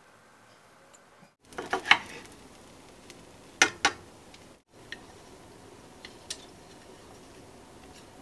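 Utensils clicking and tapping against a frying pan: a quick cluster of sharp clicks about two seconds in, two more just before four seconds, then a few faint ticks.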